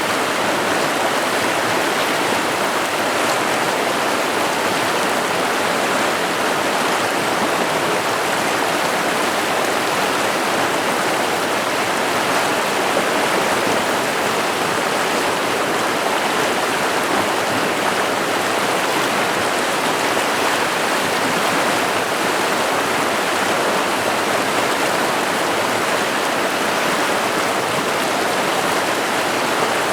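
River water rushing and splashing over rocks, a steady, even roar without a break.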